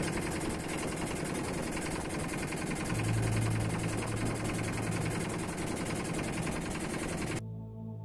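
Boat under way at sea: a steady engine hum under heavy wind and water noise, cutting off abruptly near the end, where soft ambient music starts.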